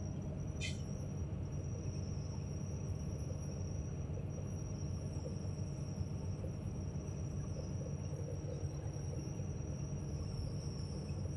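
Hydraulic excavator's diesel engine idling steadily while the raised bucket hangs still, with a thin steady high-pitched tone over it and a single click about a second in.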